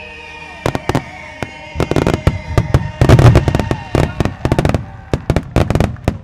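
Starmine fireworks display: shells bursting in quick succession, a few sharp bangs at first and then a dense barrage from about two seconds in, loudest in the middle and thinning near the end. Music from the show's loudspeakers plays underneath at the start.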